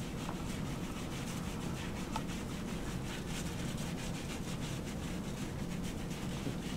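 The soapy sponge side of a surgical scrub brush rubbing up and down a lathered forearm in steady, repeated strokes.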